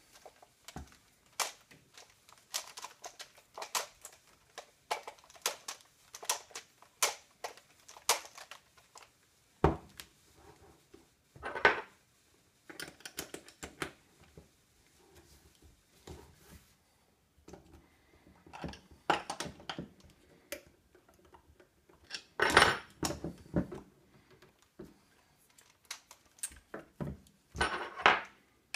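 Irregular clicks, knocks and metallic clinks from the metal and plastic parts of a homemade slingbow as its accessories are taken off and a spincast fishing reel is fitted. There are louder clatters about ten and twelve seconds in, and again near the end.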